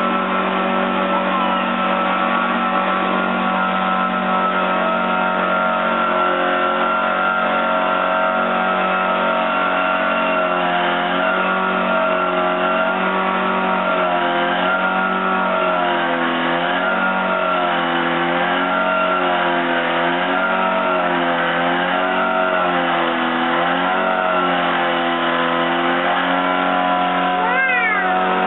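A heavy machine's engine runs steadily and unbroken. Through the middle stretch its pitch wavers up and down about once a second. Near the end come a few quick rising and falling tones.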